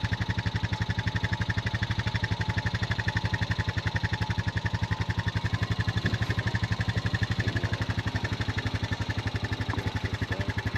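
An engine running steadily with an even throbbing beat, about ten beats a second, over a low hum.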